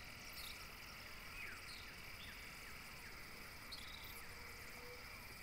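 Faint outdoor ambience: a steady high insect drone with a few short, falling chirps scattered through it.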